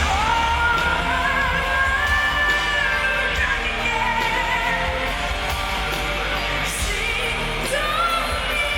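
Pop ballad with a woman's voice holding long, wordless sung notes that waver and glide, over a steady bass.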